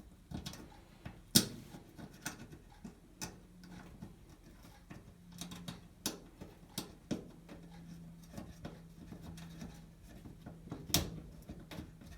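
Scattered clicks and taps of a Phillips screwdriver and a small screw being worked in to fasten a new water inlet valve to a washer's back panel. There is one sharper knock about a second in and another near the end.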